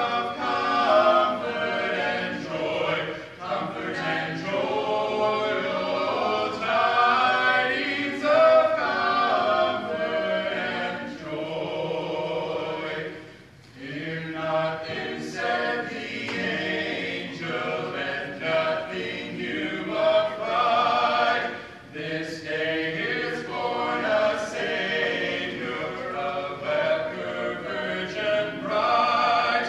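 A choir singing a cappella, voices only with no instruments, with a brief break between phrases about halfway through.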